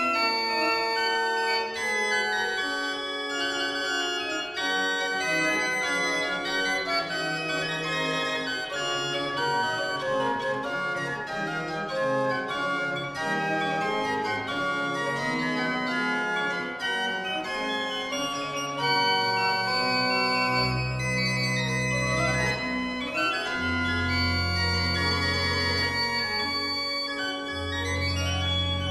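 Pipe organ being played, many voices of held and moving notes sounding together. Deep pedal bass notes come in about two-thirds of the way through.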